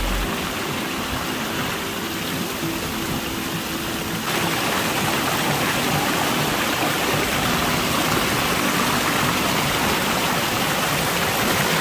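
Rushing water of a river and waterfall: a steady, even rush that becomes louder and brighter about four seconds in.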